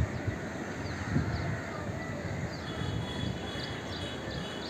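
Steady outdoor noise of wind and sea surf, with birds calling: a run of short, high chirps from about halfway.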